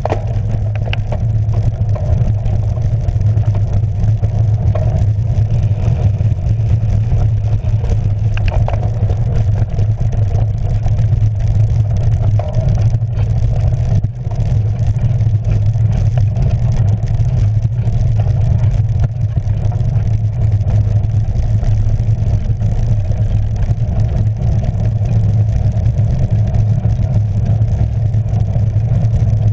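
Steady wind buffeting and rumble on a handlebar-mounted camera as a cyclocross bike rides over a rough dirt and leaf-covered track.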